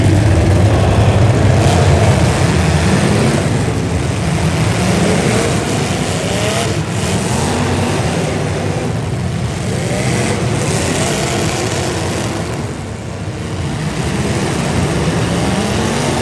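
Demolition derby car engines running and revving, their pitch rising and falling again and again over a loud, continuous din.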